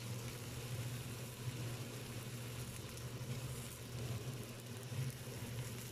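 Sliced onions sautéing in oil in a wok with a steady sizzle, over a low steady hum.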